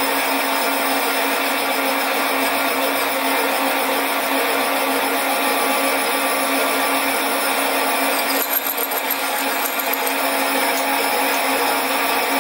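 Sieg SC4 metal lathe running steadily at low speed with its motor and gear hum, a hand reamer cutting a 9/32" bore in a spinning flywheel casting. A brief high rasp comes in about two-thirds of the way through.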